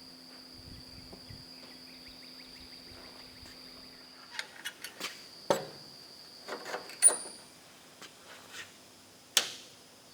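Scattered sharp clanks and clicks of metal blacksmithing tools being handled, starting about four seconds in, the loudest one with a brief high ring, over a steady high whine and low hum.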